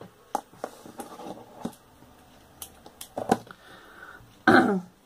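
Scattered soft knocks and rustles of craft materials being handled on a paper-covered tabletop: scissors picked up and set down, and beaded cord moved. One knock about three seconds in is louder.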